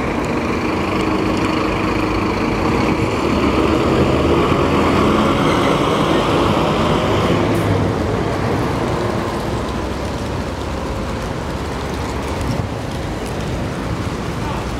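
Fire engine running as it pulls out of its station onto the street. Its engine is loudest about four to six seconds in, then eases off.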